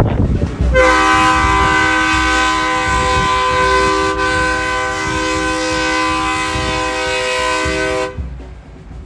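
A vehicle's multi-tone air horn sounds one long, steady chord, starting about a second in and cutting off about seven seconds later, over a low rumble.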